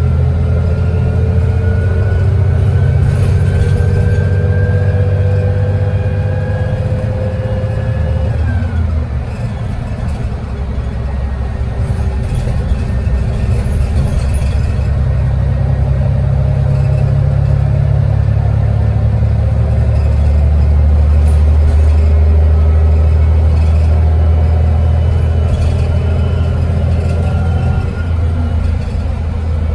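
City bus engine and drivetrain running under way: a steady low rumble with a whine that rises slowly in pitch and drops about eight seconds in, the rumble growing louder again in the last third.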